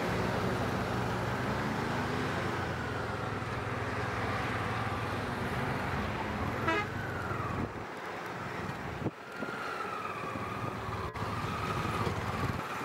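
Road traffic passing close by on a highway: a diesel lorry and a van, their engines rumbling and tyres hissing on the asphalt.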